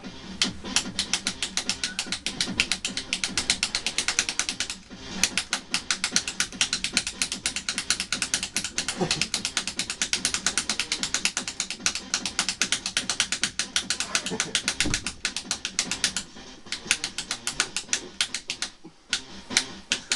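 Wall light switch flicked on and off rapidly: a fast run of sharp clicks, many a second, with a few short breaks.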